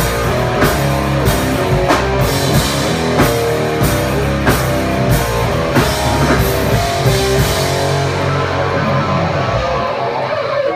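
Hardcore band playing live: heavily distorted guitars and bass over drums, with a cymbal struck about every two-thirds of a second. About eight seconds in the drums stop and the guitars are left ringing.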